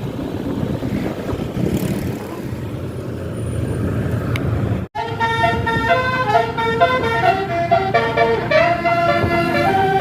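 Bus engine and road noise, then after an abrupt cut about five seconds in, a bus's telolet basuri horn plays a tune of stepped multi-tone notes.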